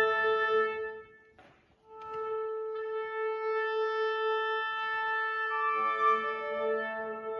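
Wind quintet playing long held notes in a slow chordal passage. The sound breaks off for under a second about a second in, then the chord comes back, and more instruments join in a fuller chord past the middle.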